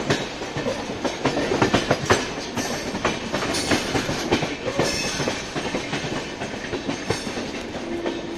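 Passenger coach wheels clattering over rail joints and points on a moving train: an irregular run of sharp clicks and knocks over a steady rumble, denser in the first half, heard through an open coach door.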